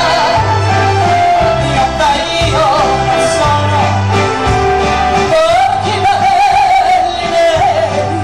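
A woman singing with vibrato over a live band of bass, electric guitar and keyboards, holding one long note midway through.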